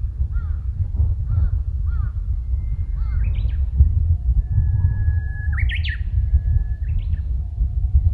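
Small wild birds calling: short chirps repeated about every half second, and twice a long, thin, steady whistle that breaks into a quick rising call. A steady low rumble runs underneath.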